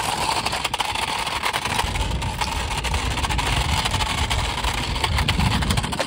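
Toy remote-control car driving over gritty dirt: its small electric motor and gears whir steadily, with many small ticks from the wheels on the grit.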